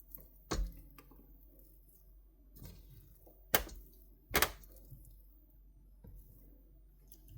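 A few short, sharp knocks spread irregularly over several seconds against quiet room tone.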